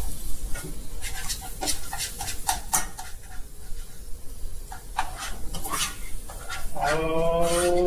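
A spatula scraping and tapping around a small non-stick saucepan while stirring diced celery, onion, green pepper and garlic sautéing in margarine, as a string of short clicks and scrapes over a light sizzle. Near the end a man's voice makes a drawn-out sound.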